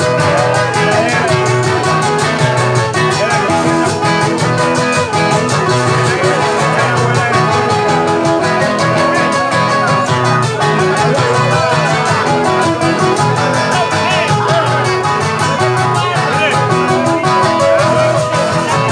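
Live guitar trio playing a merengue: acoustic guitars strumming and picking a melody over a steady rhythm of shaken percussion.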